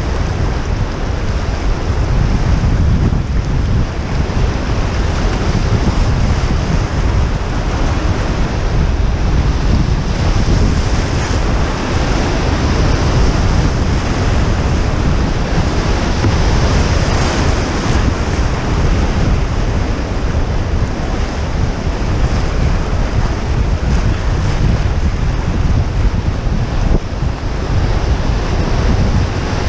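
Whitewater rapids rushing loudly and steadily around a canoe, with wind rumbling on the microphone.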